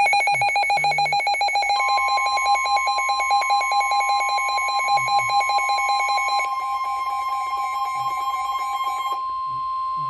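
Midland S.A.M.E. weather alert radio sounding its alarm, a rapid pulsing beep that stops about nine seconds in. Over it, the NOAA Weather Radio warning alarm tone comes through the radio's speaker, a steady single tone that starts about two seconds in. This alarm tone signals a warning, here a tornado warning.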